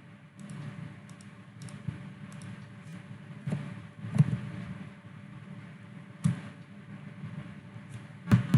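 Irregular computer mouse and keyboard clicks with a few dull knocks on the desk, over a faint steady hum.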